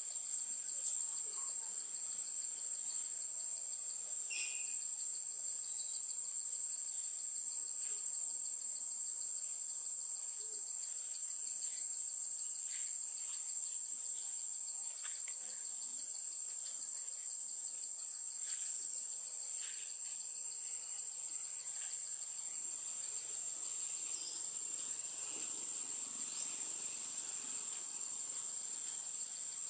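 A steady, high-pitched chorus of insects that drones on without a break, with a few faint short chirps scattered through it.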